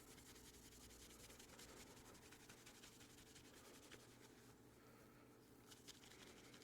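Near silence, with faint rubbing of a cloth wiping down a pocketknife and a couple of soft ticks.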